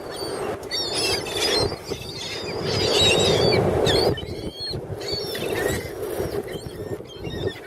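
Seagulls calling, many short overlapping cries, over wind on the microphone and surf; the rushing swells loudest around the middle.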